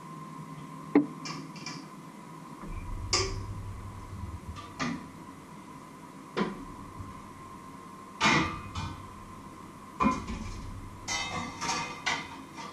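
Metal pots, pans and lids being picked up, set down and moved about on an electric stovetop: a string of clanks and knocks every second or two, the sharpest about a second in, and a quicker cluster of rattles near the end.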